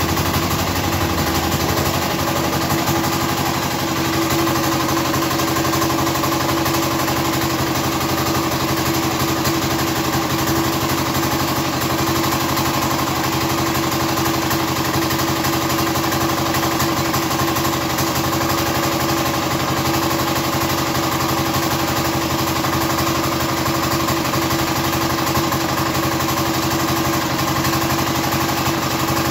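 Platinum 7.5 hp small diesel engine running steadily and loudly at a constant speed, settling in the first few seconds.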